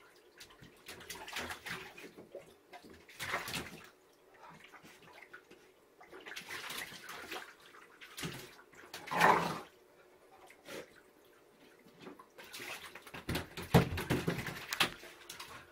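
A dog splashing in shallow bath water, pawing and snapping at it, in irregular splashes. The loudest splash comes about nine seconds in, and a busy run of splashing comes near the end.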